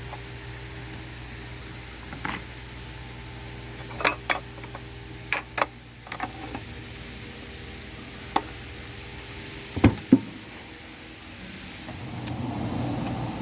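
Scattered metallic clinks and clanks of hard objects being handled, with two louder clanks about ten seconds in, over a steady hum. Near the end a louder rumble comes in.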